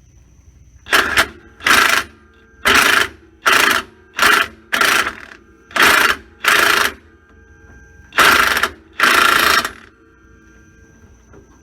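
Impact wrench hammering in about a dozen short, loud trigger bursts with pauses between, the last two bursts a little longer.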